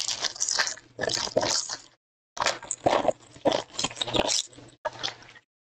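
Foil wrapper of a Panini Donruss football card pack crinkling and tearing as it is ripped open by hand, in about four stretches of crackling with brief pauses between them.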